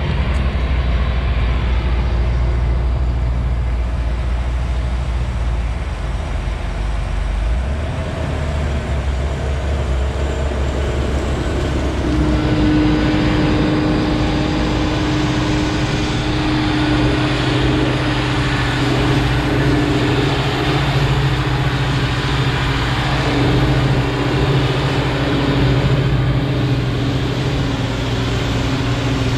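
Krone BigX 680 forage harvester chopping maize, with the tractor pulling the trailer alongside: a loud, steady machine drone. A steadier humming tone joins it about twelve seconds in.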